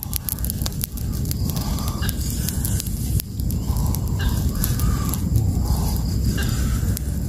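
A freshly lit heap of dry grass and pine needles burning hard, with a steady low rumble and a scatter of sharp crackles near the start. Short higher-pitched calls come every second or so over the fire.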